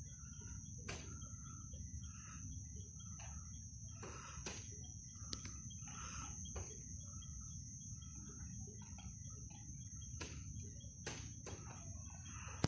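Night-time outdoor ambience: a steady high insect trill with scattered faint chirps over a continuous low rumble, with a few faint clicks here and there.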